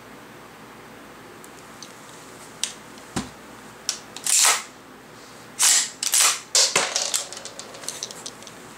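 11.5-inch AR-15 short-barrelled rifle being handled: a run of sharp metallic clicks and clacks from its action and magazine well, starting a few seconds in, with a few longer sliding clacks at the loudest and quicker light clicks toward the end.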